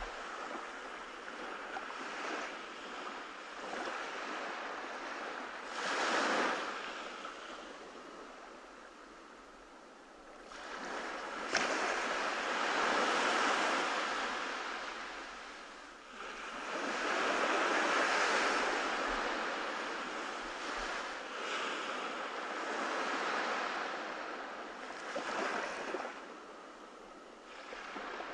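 Ocean surf washing onto the shore, swelling and falling away every few seconds.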